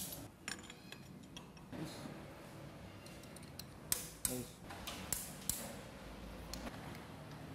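Scattered metallic clicks and taps from hand tools working on a bare diesel engine block, including now-and-then clicks of a ratchet wrench.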